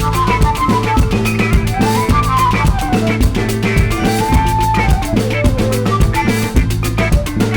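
Background music with a steady drum beat, bass and a plucked melody.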